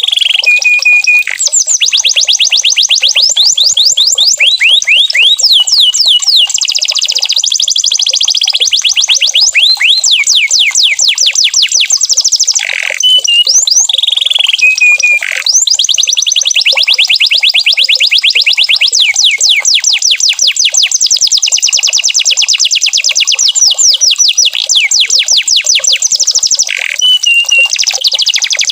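Domestic canary singing: long, fast trills of rapidly repeated sweeping notes, broken a few times by short held whistles.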